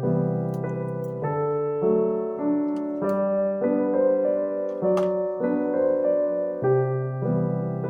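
Background piano music: a slow, gentle melody with sustained chords.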